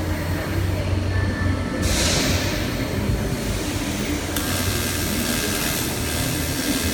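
AC TIG welding arc on aluminium: a steady electrical buzz with a hiss over it that shifts in tone about two seconds in and again partway through.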